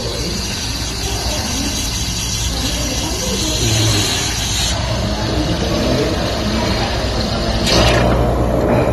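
Automatic coffee machine's milk frother and pump running steadily, hissing as frothed milk pours from its twin spouts into a cup. The high hiss thins about halfway through, and a brief burst of noise comes near the end.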